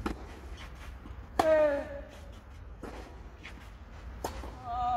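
Tennis rally on a clay court: four crisp racket-on-ball hits about a second and a half apart. A player gives a short grunt on the loudest hit, about a second and a half in, and a brief shout comes near the end.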